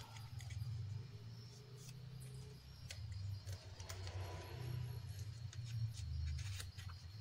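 Paper being handled and folded: scattered light clicks and short rustles of creasing paper over a low, uneven hum.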